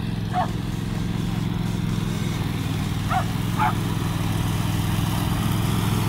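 Riding lawn mower engine running steadily while cutting grass, with a small dog barking at it: two barks at the start and two more about three seconds in.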